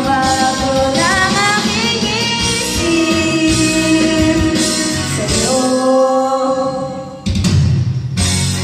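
A woman sings karaoke into a microphone over a backing track, holding long notes that slide in pitch. Near the end her voice stops and the backing music carries on.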